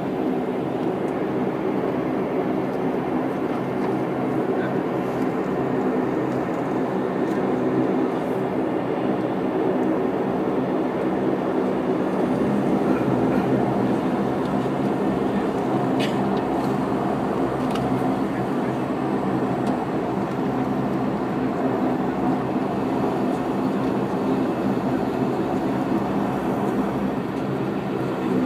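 Cabin noise of a Bombardier Dash 8 Q400 from a seat beside the propeller: the Pratt & Whitney PW150A turboprop running steadily at taxi power, a steady drone with several low humming tones.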